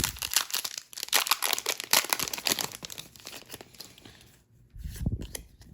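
Trading-card booster pack wrapper being torn open and crinkled by hand, a dense run of sharp crackles that thins out after about three seconds, followed by a soft low thump near the end.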